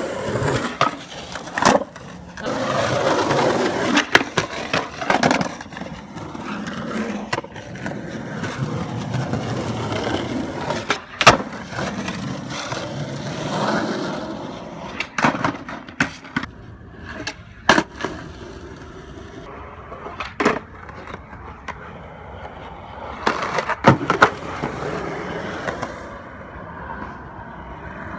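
Skateboard wheels rolling on concrete, broken by sharp wooden clacks of the board hitting the ground as the skater pops and lands tricks, about a dozen over the stretch.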